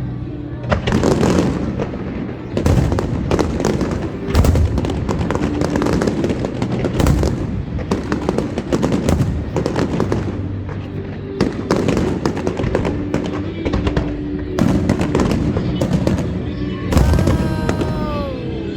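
Fireworks display: aerial shells bursting one after another in a dense, continuous barrage of bangs and crackles. Music plays underneath, and a falling tone glides down near the end.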